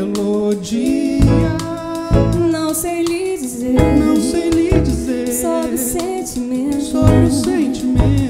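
Live band playing a Brazilian pop (MPB) song, with singing over drums, bass, guitar and keyboards.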